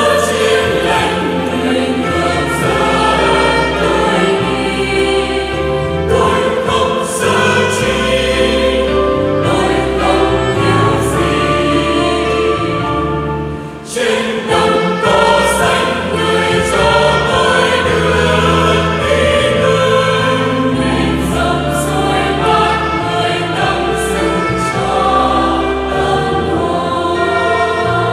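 Mixed church choir of men and women singing a Vietnamese Catholic hymn with electronic keyboard accompaniment. The music breaks off briefly about halfway through, then the choir comes back in.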